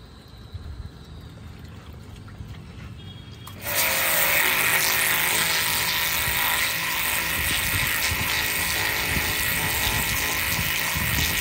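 Handheld electric high-pressure washer switched on about four seconds in, its jet running steadily: a loud hiss of water blasting a pointed gourd and the bricks around it, with a faint steady machine tone underneath.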